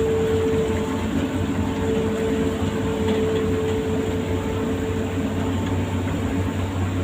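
Amphibious excavator's diesel engine running steadily, a low drone with a steady whining tone over it.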